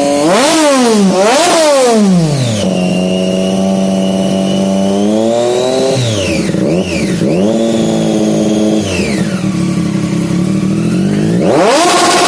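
An engine being revved: two quick blips, then held at high revs, dropping and held again, settling lower, and rising sharply again near the end.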